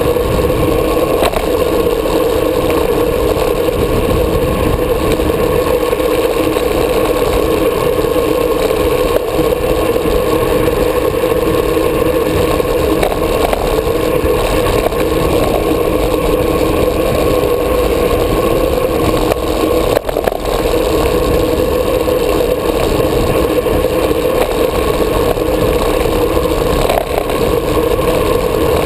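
Steady wind rush and rolling road noise on a moving GoPro's microphone, with a constant low hum underneath.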